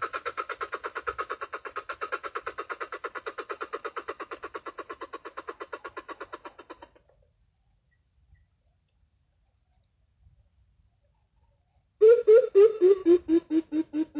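Recorded coucal calls playing from a bird-trapping speaker. A fast run of pulsed notes, about six or seven a second, fades out about seven seconds in. After a few seconds of near silence, a louder, deeper series of pulsed notes starts near the end, dipping and then rising in pitch.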